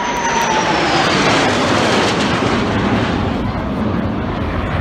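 Formation of military jets passing low overhead: a loud jet roar with a whine that falls in pitch as they go by.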